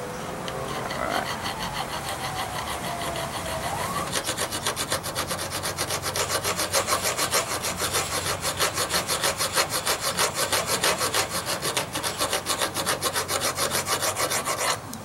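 Hand file rasping back and forth on the steel at the muzzle end of an AK pistol's barrel, cutting away metal to free the old muzzle brake. The strokes are quick and even, about three a second; they grow louder from about four seconds in and stop abruptly just before the end.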